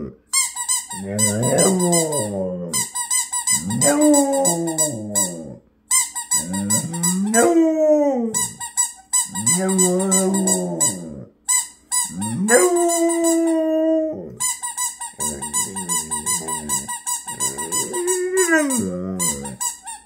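A dog howling, its first attempts at howling: about eight drawn-out howls, each one to two and a half seconds long with short breaks between, several bending up and then down in pitch.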